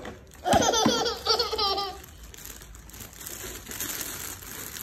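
A young child laughing loudly and high-pitched for about a second and a half, then thin plastic wrapping crinkling as it is pulled off a toy truck.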